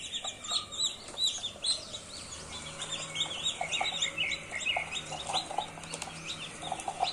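A brood of chicks peeping continuously, many short high-pitched peeps overlapping one another. Lower, shorter calls join in from about three seconds on.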